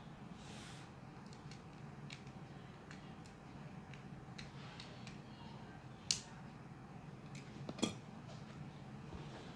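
Small plastic clicks and creaks as the clip-fastened plastic case of a wall-clock movement is prised open by hand, with two sharper snaps about six and eight seconds in as the clips let go and the cover comes free.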